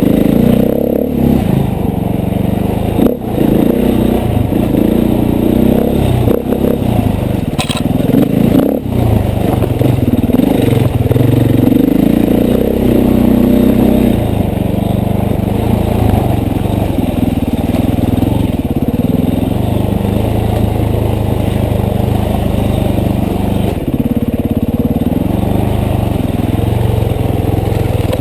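KTM 450 single-cylinder four-stroke dirt bike engine being ridden, its revs rising and falling with the throttle. A few sharp knocks stand out in the first nine seconds.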